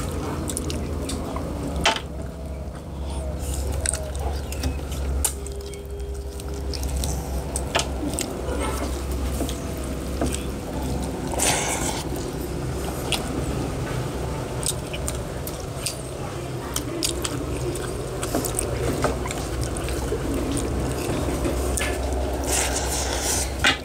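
Close-up eating sounds: chewing and the wet squish of fingers mixing rice and curry on brass plates, with scattered small clicks, over a steady low hum.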